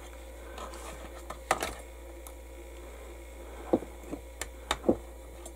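A handful of sharp little clicks and knocks of a plastic model aircraft being handled and set against its clear acrylic holding stand, the sharpest about a second and a half in and several close together near the end, over a steady low hum.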